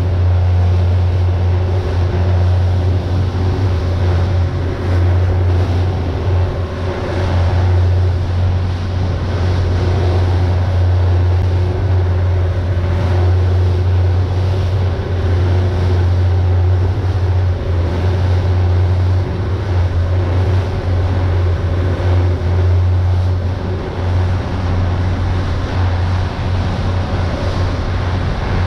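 Pilot boat's engines running steadily under way, a deep constant drone with a few steady higher tones over a rushing noise.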